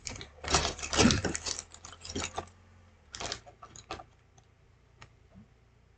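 Rattling and clicking of small hard objects, loudest in the first half, over a low steady hum that shifts slightly higher in pitch about halfway through.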